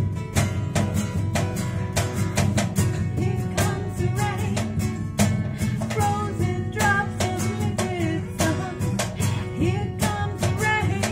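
Two acoustic guitars strummed together in a steady rhythm, with a woman's singing voice coming in over them a few seconds in.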